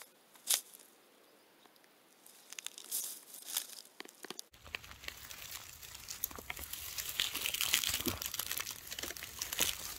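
Young mugwort being cut and pulled by hand: crisp crackling and tearing of stems and leaves. A few scattered clicks at first, then dense, continuous crackling from about halfway on.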